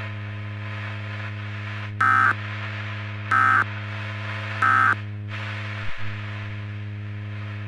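Emergency Alert System End of Message signal: three short bursts of SAME digital data tones, about a second apart, closing the blizzard warning broadcast. A steady low hum runs underneath, with a faint click about six seconds in.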